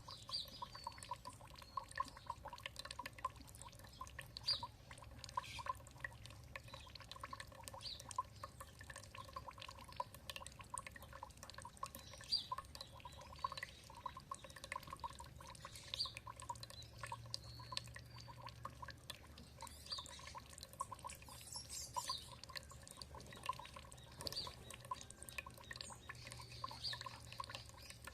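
Water trickling and dripping in many small drops, with a bird giving short high chirps every few seconds.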